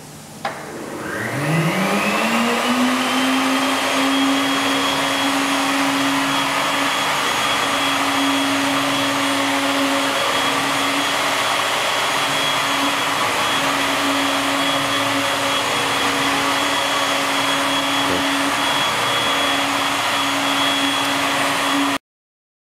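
The Denford Vertical Router's 21,000 rpm spindle motor switching on with a click and spinning up, its whine rising steeply over about three seconds, then running at a steady high whine with a hiss. The sound cuts off suddenly near the end.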